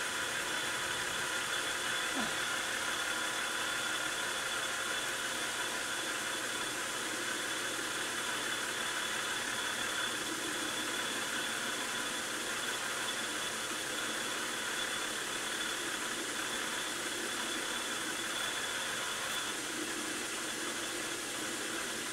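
Metal lathe running at a steady speed while a 3/16-inch radius form tool is fed slowly into the end of a spinning 3/8-inch steel drill rod, forming a rounded end. A steady, even machine hum and hiss.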